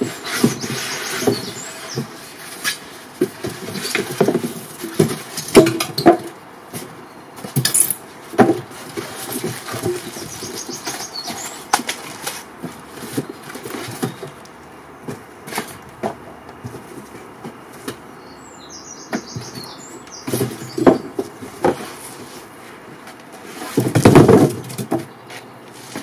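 Cardboard box and packing material handled and rustled while a spoked hub-motor wheel is unpacked, with scattered knocks and thumps throughout. A louder burst of rustling and scraping comes about two seconds before the end.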